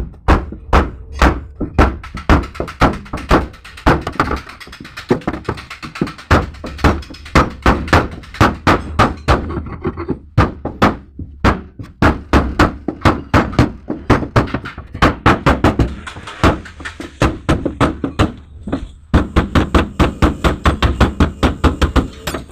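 Hammer blows on sheet-metal vehicle bodywork, about three a second in long runs with brief pauses, as the crumpled lower door pillar of a Mitsubishi L300 is beaten back into shape.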